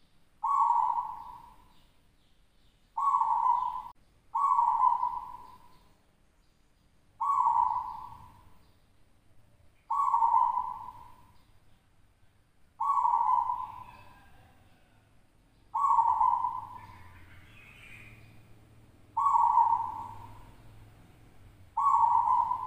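Zebra dove (perkutut) cooing: nine coo phrases, each starting sharply and fading over about a second, repeated every two to three seconds.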